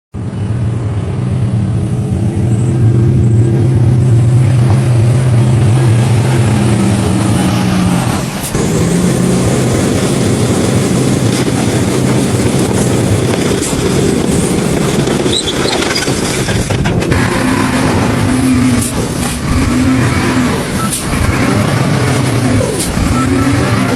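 Heavy construction machinery running, its engines droning steadily, with the pitch shifting a couple of times and some sharp knocks in the second half.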